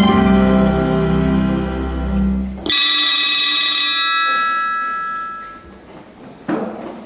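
Instrumental music: a sustained low string chord, then a single bright bell-like chime struck about two and a half seconds in that rings out and fades over a few seconds.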